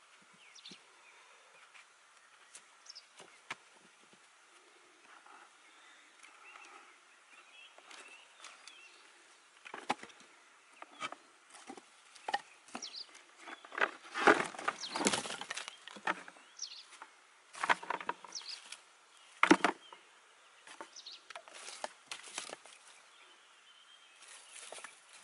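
Dry sticks and deadwood knocking and clattering as they are handled and stacked by hand. The knocks come in scattered bunches, sparse at first and busiest and loudest about halfway through.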